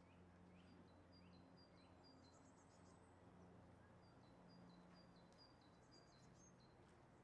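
Near silence with faint birdsong: a bird repeats short runs of high, stepping-down notes, over a faint low hum.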